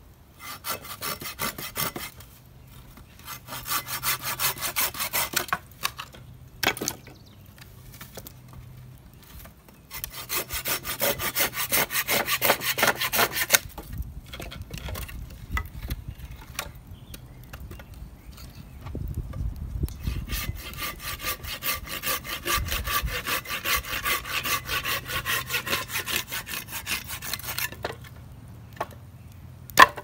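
Hand saw cutting through a dry dead branch: three spells of fast back-and-forth rasping strokes with short pauses between them, and a sharp knock near the end.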